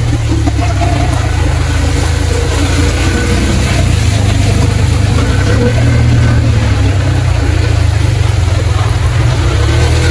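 Heavy rain pouring onto a flooded road, with car engines running and tyres driving through standing water; a steady, loud wash of noise.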